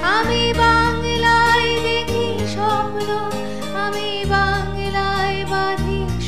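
Instrumental interlude of a Bengali song backing track: a melody line over held bass notes and a regular beat, opening with a quick rising sweep.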